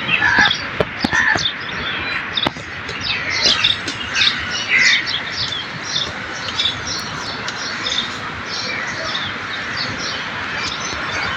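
Many birds chirping and calling at once, a dense run of short, high, overlapping calls.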